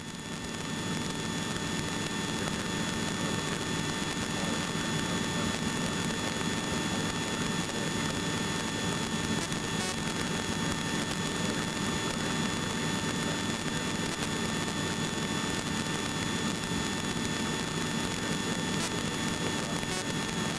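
Steady helicopter engine and rotor noise heard inside the cabin in flight, an even drone with thin, constant whining tones over it.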